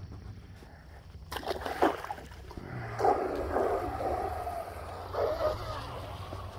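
Mini RC outrigger hydroplane with a 2835 4000kv brushless outrunner motor running across a pond, its motor whine wavering with the water spray from about three seconds in. A short rustling burst comes just before.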